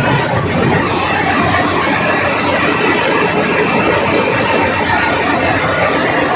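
Loud, steady machinery noise of a ship's engine room: a dense, even roar of running engines, generators and pumps with no single machine standing out.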